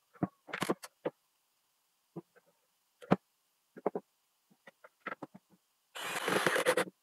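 Plastic blower adapter housing being fitted onto an angle grinder by hand: a string of short plastic clicks and knocks, then about a second of dense scraping noise near the end as a screwdriver works on the housing.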